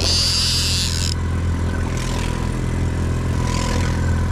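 Boat engine running steadily at low speed, with a brief high hiss in the first second.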